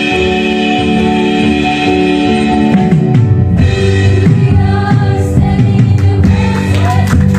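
Live worship band playing: held keyboard chords, then about three seconds in a low bass note slides down and the drums come in with a steady beat, with voices singing over it.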